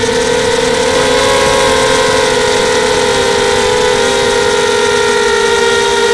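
Mini quadcopter's four brushless motors (Sunnysky 2300kv) and 5x3 Gemfan props whining steadily in flight. Several close tones shift slightly in pitch as the throttle changes.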